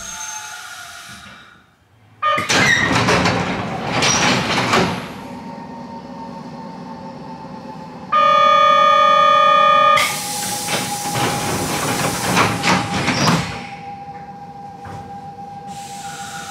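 Air-operated sliding passenger doors of an ex-Hankyu 3100-series commuter car opening with a rush of air about two seconds in. Near the middle a steady buzzer sounds for about two seconds, and then the doors slide shut with another burst of air and rattling. After that the car stands with a steady hum.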